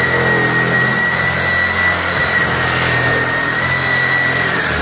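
Cordless power saw running steadily, its blade cutting through timber with a high motor whine. The blade cuts freely without binding, a sign that the timber is no longer under load now the steel beam carries it.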